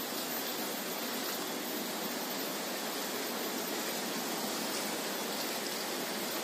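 Steady, even hiss of outdoor background noise, unchanging and with no distinct events.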